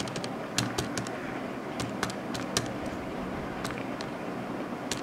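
Keys being pressed on a Casio calculator: a series of short, sharp clicks at an uneven pace as a sum is keyed in.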